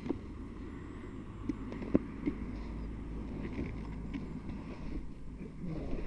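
Motorcycle riding noise picked up by a helmet microphone: a steady low rumble of wind and road noise, with a few short knocks around two seconds in.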